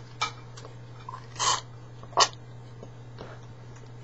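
A very young puppy being hand-fed from a feeder gives three short, breathy noisy bursts, the last one the sharpest and loudest, over a steady low hum.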